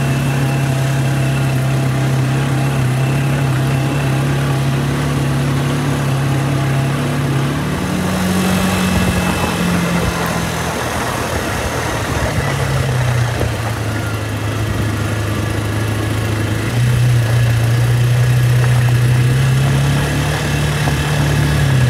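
ATV engine running while being ridden, its pitch climbing about a third of the way in, dropping back, then rising again toward the end as the throttle changes.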